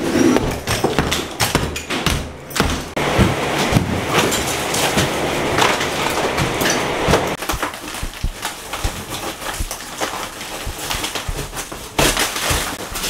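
Hand demolition of interior walls: a pry bar and hammer knocking and scraping against drywall, plaster and wooden studs in quick, irregular strikes. A louder stretch of tearing and crumbling wallboard comes near the end.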